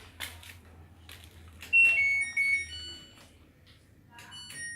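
LG washer-dryer control panel sounding its electronic chime: a short run of high, pure beep tones about two seconds in, and another beginning near the end, after a few light clicks.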